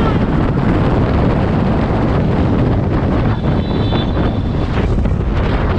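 Steady wind rush on the microphone of a moving motorcycle, with the motorcycle's engine and passing road traffic underneath.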